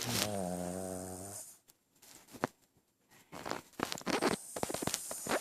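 Dog snoring: one long, pitched, slightly wavering snore of about a second and a half, "like a man". Then a pause, and in the last two seconds a run of quick clicks and rustling.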